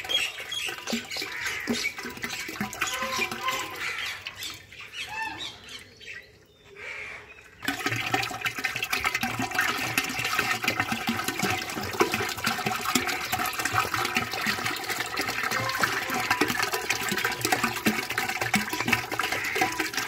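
Liquid pouring from two plastic soda bottles into a large earthen pot of liquid, a steady splashing pour that starts abruptly about eight seconds in. Before it, birds chirping.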